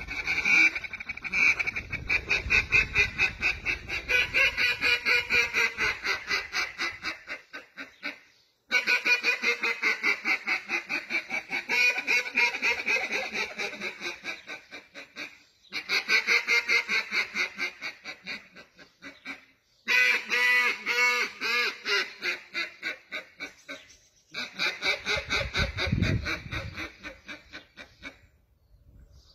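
A duck call blown by mouth in a competition calling routine: runs of rapid quacks, each run starting loud and tapering off, broken by short pauses. About twenty seconds in comes a faster, denser chatter of notes.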